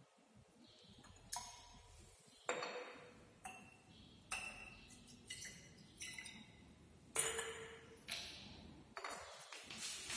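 Glass clinking: a glass measuring cylinder knocking against the neck of a glass conical flask as sodium hydroxide solution is poured in, about ten sharp clinks spread out, each ringing briefly.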